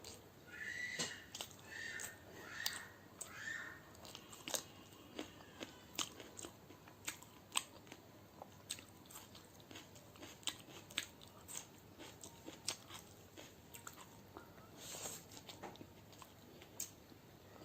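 Close-miked eating of egg biryani with raw onion: chewing and crunching, with many sharp mouth clicks. A cat meows about four times in the first few seconds.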